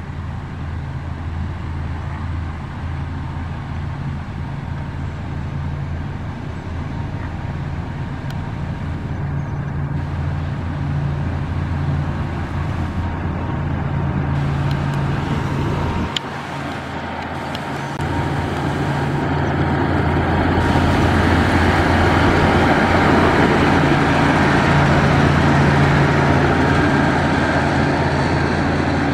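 Heavy diesel engines of road-building machines running steadily with a low hum: road rollers and a dump truck, then a motor grader spreading gravel. About 16 seconds in the sound breaks briefly, and after that it grows louder and noisier.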